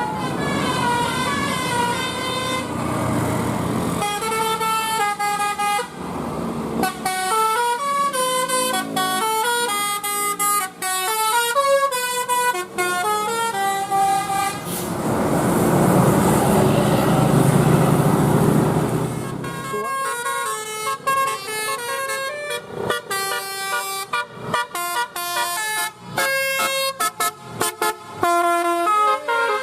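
Telolet basuri musical air horn on a tour bus playing a melody of quick stepped notes. A loud rush of noise runs for several seconds midway, and then the horn tune picks up again.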